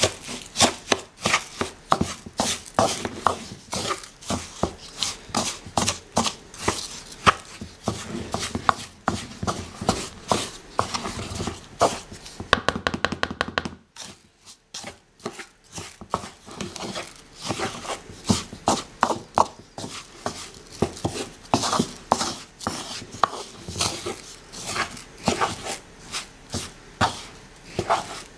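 Wooden spoon stirring and fluffing couscous grains in a wooden salad bowl: irregular knocks and scrapes of wood on wood, several a second. A faster run of strokes comes just before a brief pause about halfway through.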